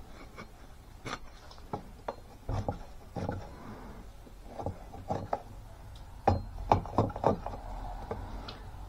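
A Kings County camp axe is being drawn down a thin stick of wood, shaving it in a run of short, irregular scraping strokes that grow louder a little past halfway. This is a sharpness test of the factory edge, which cuts but could be sharper.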